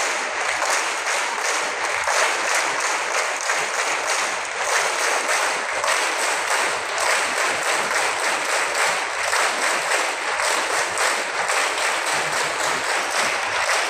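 A large crowd of schoolchildren clapping together, dense and steady, with no pauses.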